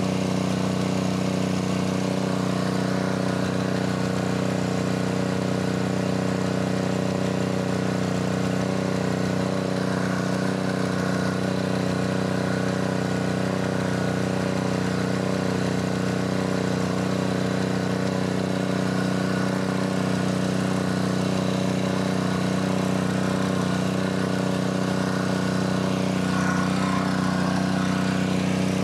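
Small gasoline engine running steadily at a constant speed.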